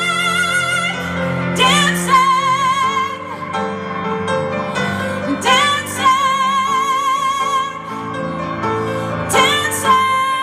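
Live pop ballad music: a high melody line held in long notes with wide vibrato, each new phrase reached by an upward slide, over a steady accompaniment with piano.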